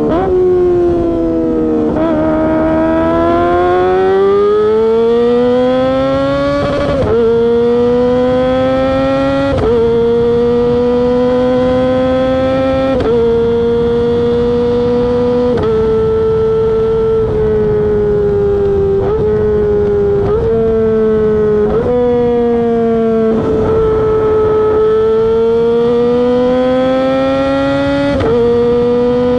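Kawasaki ZX-25R's 250 cc inline-four engine, fitted with a LeoVince aftermarket exhaust, running at high revs under way. The high-pitched exhaust note sags and climbs over the first few seconds, then jumps in sudden steps about ten times as the rider changes gear and throttle.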